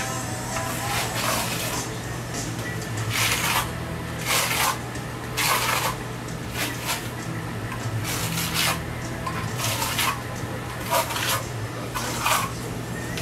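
Plastering trowel worked over wet plaster: a series of short scraping strokes, roughly one every second or two, over a steady low hum.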